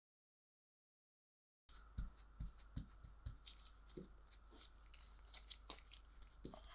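Dead silence for about the first second and a half, then faint, irregular soft taps and rubbing as a gloved hand pats a cotton ball over alcohol-inked clear tape.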